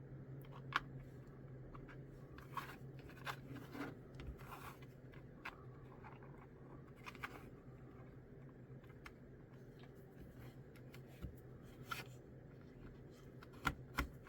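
Plastic miniature kit parts being handled and pressed together for gluing, giving scattered light clicks and taps over a steady low hum.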